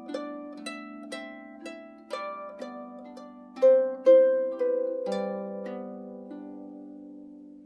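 Calm background music of plucked strings, harp-like: a slow melody of single notes about two a second, each ringing out. Two louder notes come near the middle, then a long note fades slowly.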